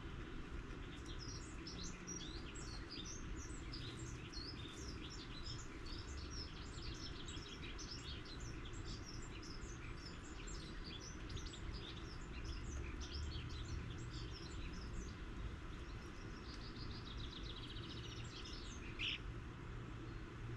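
Small garden birds chirping and twittering busily in quick overlapping calls, thinning out after about 15 s into a short rapid rattle of ticks and one louder note near the end. A steady low background rumble runs underneath.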